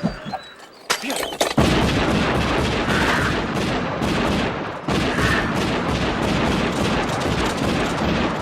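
Film soundtrack gunfire: two sharp shots about a second in, then sustained rapid, dense gunfire with crashes.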